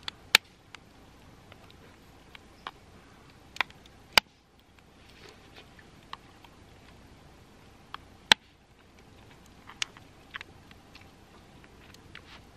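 Scattered sharp pops and clicks a few seconds apart, the loudest about half a second in and again after eight seconds, from a wood campfire crackling, over quiet eating sounds of a spoon in a metal lunchbox and chewing.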